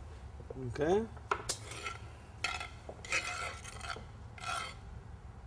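A spoon scraping and stirring through a thick fava bean curry in a pan, in about four short rasping strokes.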